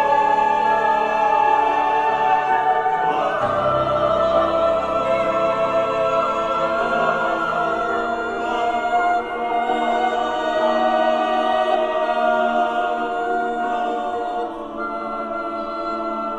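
Mixed chamber choir singing long, held chords in a contemporary classical choral setting, moving to a new chord about three and a half seconds in and growing a little softer near the end.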